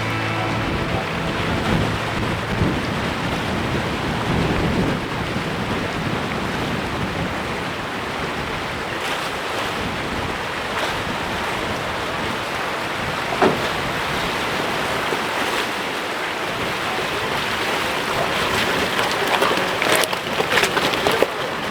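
Steady rush and splash of river water as a 4x4 fords the river, with a few knocks in the last couple of seconds.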